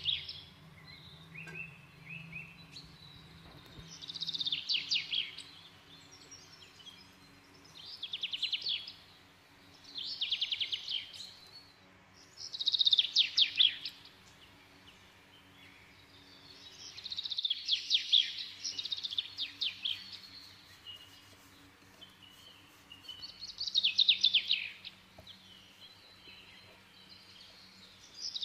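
A songbird singing: short phrases of rapid trilled notes, repeated every few seconds, with one longer phrase about 17 seconds in.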